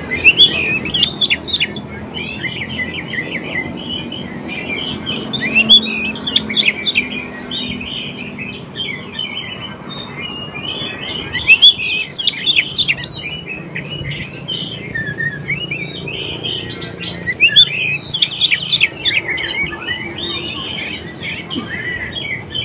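Oriental magpie-robin (kacer) in full song: a continuous warbling run of whistled and chattering phrases, broken four times, about every six seconds, by a loud burst of rapid, sharp, high notes. It is the kind of vigorous song played as a lure to get young or newly caught magpie-robins to answer.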